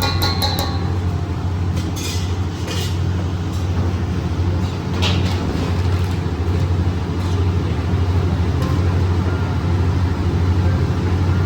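Steady low mechanical hum with a few light clinks of spoons and containers: a cluster near the start, more about two to three seconds in and one about five seconds in.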